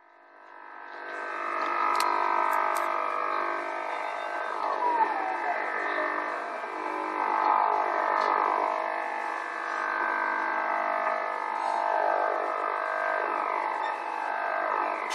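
Shortwave radio receiver tuned to the 40 meter band, playing a strange interference signal: a dense cluster of steady tones with repeated downward-sliding sweeps, fading in over the first second. The uploader wonders whether it comes from HAARP.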